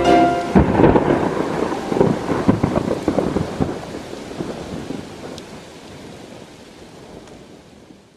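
A thunderstorm: thunder crackling and rumbling over steady rain. It is loudest in the first few seconds, then fades away gradually.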